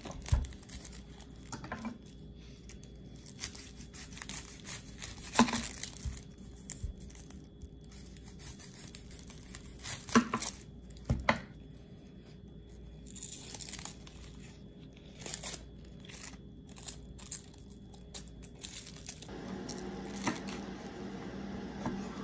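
Dry, papery onion skin being torn and peeled off a yellow onion by hand, crackling in short bursts, with a few sharper knocks on a wooden cutting board.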